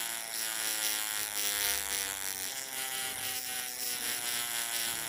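Jet-plane sound effect made with a tyre and paper: a steady buzzing whine over a loud hiss, its pitch slowly falling.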